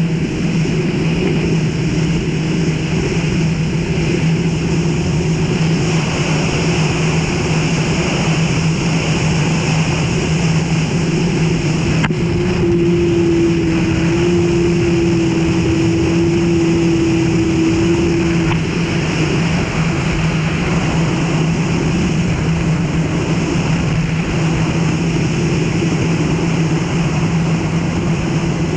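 Yamaha VX WaveRunner personal watercraft running at cruising speed: a steady engine hum with a higher jet-pump tone over water rushing past the hull. About twelve seconds in there is a single click, and the engine note rises slightly and holds for several seconds before settling back.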